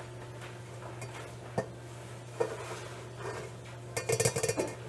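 Kitchen utensils and dishes knocking and clinking: a couple of single knocks, then a quick run of clinks near the end, over a steady low hum.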